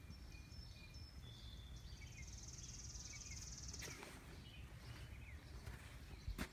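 Faint outdoor ambience: a steady low wind rumble, a few short high chirps early on, and a high, rapidly pulsing trill lasting about two seconds near the middle, with a couple of faint clicks.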